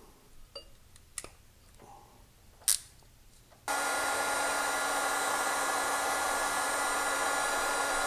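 A few faint handling clicks, then a heat gun switched on about halfway through, its fan blowing steadily with a constant whine.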